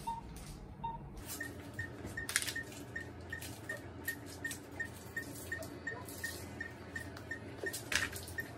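Operating-room patient monitor beeping: lower beeps about every 0.8 s give way about a second in to a higher, faster series of about three beeps a second. Over it come clicks and rustles of medical supplies being handled and passed, loudest twice.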